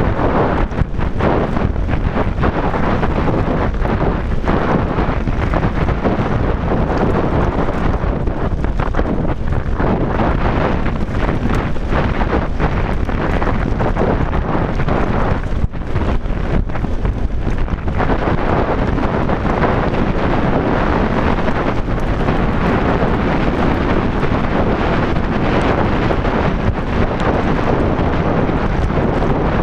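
Mountain bike descending a rough gravel track at speed: constant wind buffeting on the microphone over the crunch of tyres on loose stones, with frequent knocks and rattles from the bike over the rocks.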